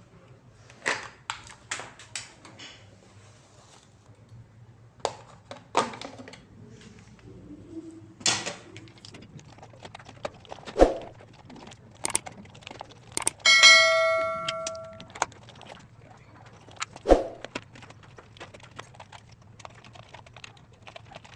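Hands at work on electrical fittings: scattered clicks and knocks of tools and plastic parts, with one clear ringing ding about thirteen seconds in that fades over a second or so.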